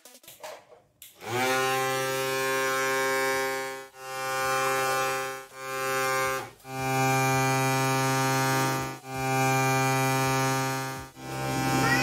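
Small DC motor from a portable juicer blender, driving a homemade bottle vacuum cleaner, starting about a second in and running with a steady buzzing hum. The hum comes in stretches of one to three seconds, each broken by a brief dip before it picks up again.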